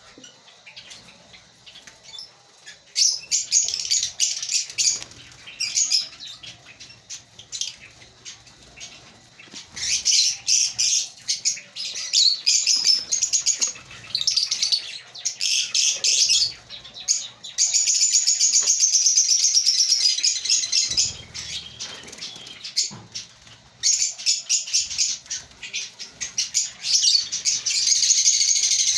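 A colony of African lovebirds chirping and chattering in quick runs of shrill, high-pitched calls, pausing and restarting, with one long unbroken stretch of chatter about two thirds of the way through.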